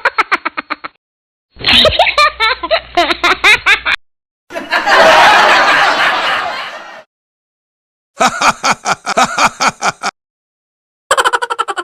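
A run of short meme sound-effect clips separated by brief silences, mostly bursts of rhythmic, pulsing laughter. In the middle comes a different clip of about two and a half seconds, a noisy rush that fades away.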